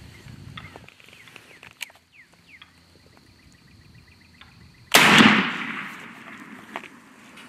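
A single shotgun blast fired at a wild turkey about five seconds in, very loud, with a long echo that fades over about a second. Faint bird chirps come before it.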